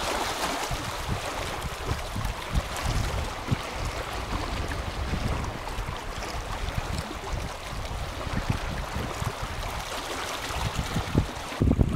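Wind buffeting the microphone in uneven low thumps over the wash of small sea waves lapping and splashing against rocks.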